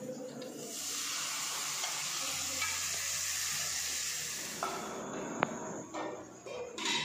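Maggi noodles tipped into hot oil with frying onions in a kadai, sizzling from about a second in and dying down after four seconds or so. A single sharp clink comes near the end.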